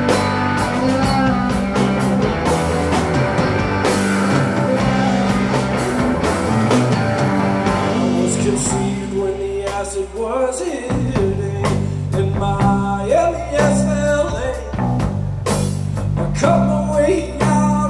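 Live rock band playing: guitar and drums keeping a steady beat, with singing over it.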